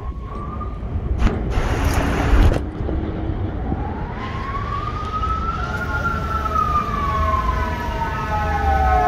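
A fire engine's siren wailing: one slow rise and a longer fall in the second half, over a steady low rumble of traffic. A loud rushing noise about a second in.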